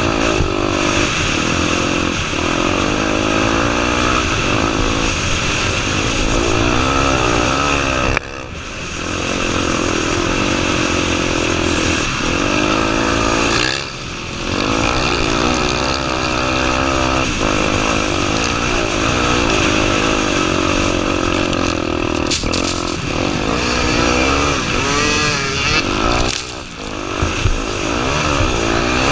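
Honda Tornado 250's single-cylinder four-stroke engine under way, its revs rising and falling continuously as it is ridden off-road. The throttle drops off sharply about eight and fourteen seconds in, then picks up again.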